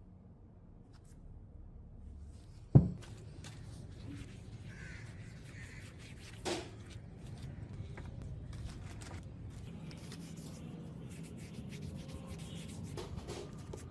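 Small metal and stone parts handled and fitted together by hand: rubbing and light clicking, with a sharp knock about three seconds in and a smaller one a few seconds later.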